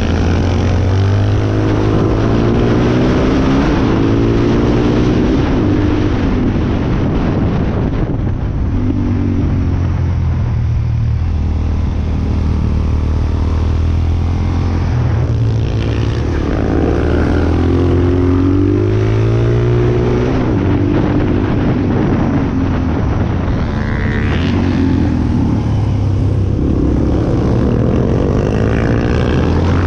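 Suzuki DR-Z400 supermoto's single-cylinder four-stroke engine, recorded on board, revving up and down repeatedly as the bike accelerates out of corners and shuts off into them. There is a longer quieter spell off the throttle around ten seconds in.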